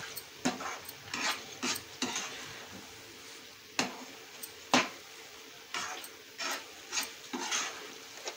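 A spoon stirring peas through masala frying in a pan: irregular scrapes and knocks against the pan over a low sizzle, with two sharper knocks about four and five seconds in.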